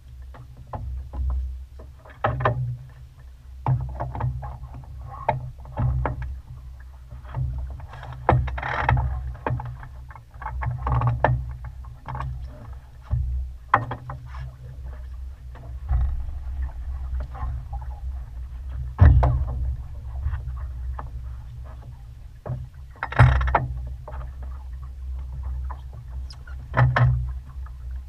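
Sailboat moving under sail: water splashing and slapping against the hull at irregular intervals, with a few louder splashes, over a steady low rumble of wind on the microphone.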